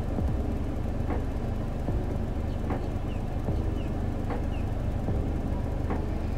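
Steady low hum of a car idling, heard from inside the cabin, with a faint tick repeating a little less than once a second.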